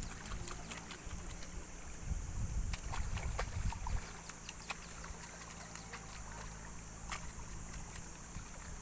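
Muddy water splashing and squelching in a flooded rice paddy as rice seedlings are handled and pushed into the mud, with scattered small splashes and clicks. Wind rumbles on the microphone during the first four seconds or so.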